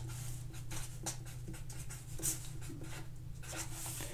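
Marker pen writing on paper: a run of short scratchy strokes as letters and a fraction line are drawn, over a low steady hum.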